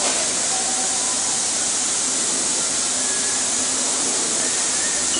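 A steady, even hiss with no knocks or taps in it, the constant noise of a workshop or of the recording itself.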